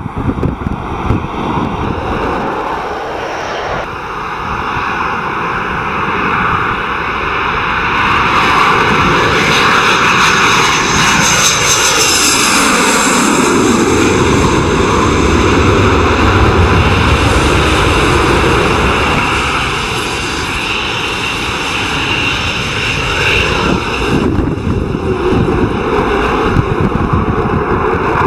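Jet noise of a Panavia Tornado passing, with its twin RB199 turbofans; it is loudest through the middle, and its pitch falls sharply about halfway through as the jet goes by.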